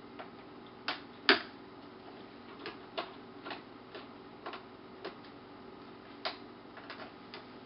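Small screwdriver clicking and ticking against screws and the plastic screen bezel of an Asus X501A laptop as the screws are turned out. About a dozen light, irregularly spaced clicks, the loudest about a second in.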